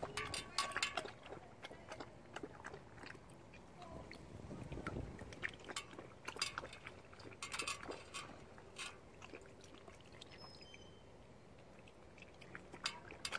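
Landseer puppy lapping water from a stainless steel bowl: faint, wet laps and splashes that come in short clusters with quieter pauses between.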